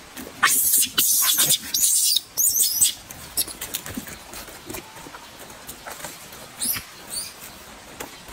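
Macaque peeling and eating a banana: several loud, crackly tearing bursts of the peel in the first three seconds, then quieter chewing and smacking clicks, with two brief high squeaks about seven seconds in.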